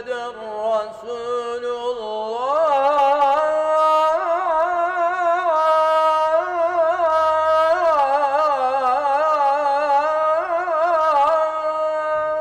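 A muezzin's voice chanting the ezan, the Islamic call to prayer, on the phrase 'Eşhedü enne Muhammeden Resulullah'. From about two seconds in he draws the last word out into a long, ornamented melody that grows louder and is still going at the end.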